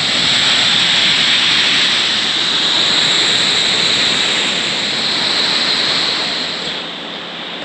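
Waterfall rushing into a pool, a loud steady hiss of water that falls away near the end.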